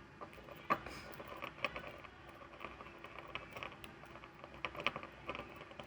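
Hook pick working the pins inside a brass pin-tumbler padlock under a tension wrench: faint, irregular scratching and small clicks, with a sharper click about a second in.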